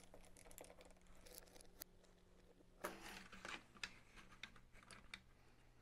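Near silence with faint plastic clicks and handling noise as the gel blaster's gearbox and barrel are pressed into its plastic shell, with a slightly louder clatter about three seconds in.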